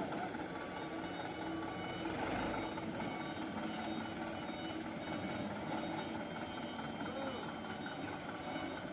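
Diesel engine of a laden Mitsubishi Canter light truck running steadily under heavy load as it strains up a slippery, rain-soaked hill.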